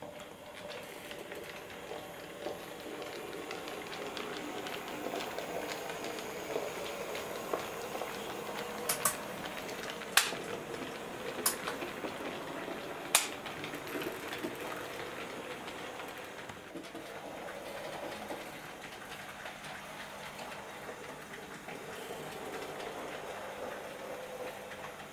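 OO gauge model train, a small locomotive hauling coaches, running on the layout's track with a steady whirring hum that grows louder as it passes and fades away. A handful of sharp clicks from the wheels on the track come around the middle.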